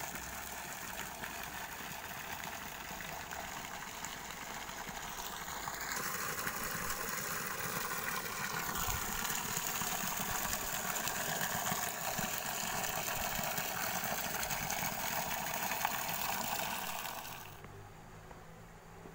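Steady rushing of water pouring from an irrigation channel into a flooded rice paddy. It grows louder about six seconds in and drops away suddenly near the end.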